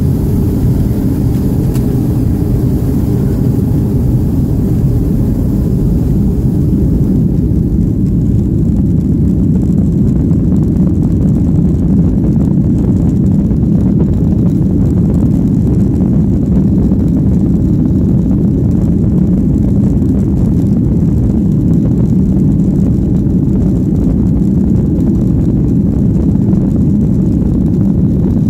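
Steady low rumble inside the passenger cabin of a Southwest Airlines Boeing 737 as it rolls along the ground, its jet engines running.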